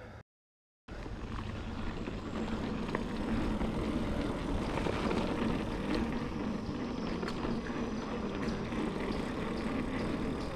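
Mountain bike rolling along a dirt singletrack: a steady rumble of tyres and wind on the microphone, with small rattles and clicks from the bike. It starts after a brief cut to silence just after the start.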